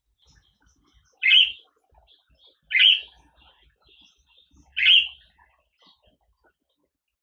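Budgerigar calling: three loud, short chirps about a second and a half to two seconds apart, with faint soft chattering between them.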